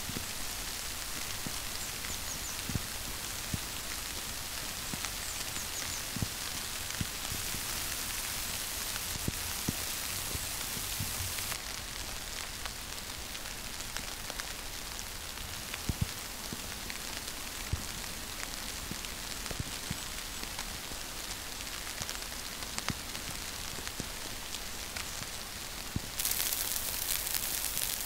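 Wet snow falling and landing on tent fabric and branches: a steady hiss with many light scattered ticks, changing level a few times.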